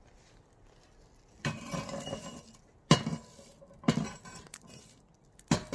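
Metal clinks and knocks from a homemade perforated chestnut roasting pan, with chestnuts rattling against the metal. There are four sharp knocks about a second apart, the first followed by a short rattle.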